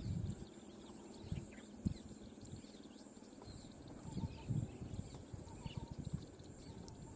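Quiet outdoor ambience with faint, scattered bird chirps and a few brief low thumps, the loudest a little under two seconds in and two more around four and a half seconds.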